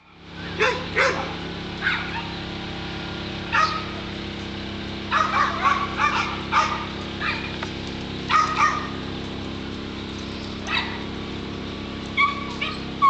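Dog barking in short, irregular bursts, some singly and some in quick runs of three or four, over a steady low hum.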